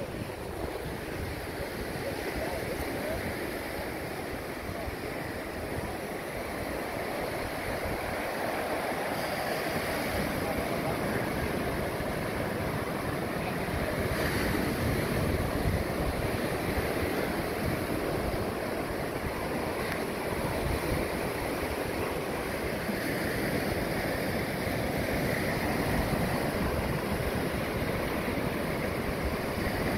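Floodwater of a river rushing out through an opened sandbar into the sea, with waves breaking at the mouth: a steady wash of moving water. Wind buffets the microphone throughout.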